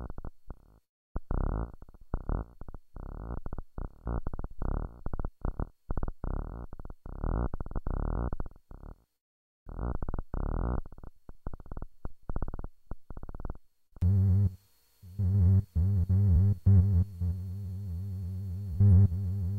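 Electronic synthesizer music, chopped into stuttering fragments with short gaps. About fourteen seconds in it changes to a steadier, deeper-toned sound that keeps a pulsing rhythm.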